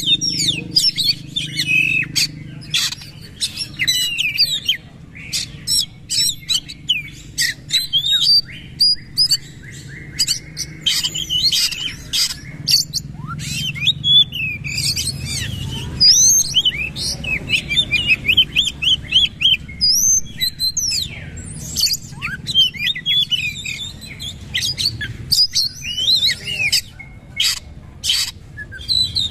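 Oriental magpie-robin singing a long, unbroken run of loud, sharp whistles, chirps and fast trills, fired off in rapid volleys.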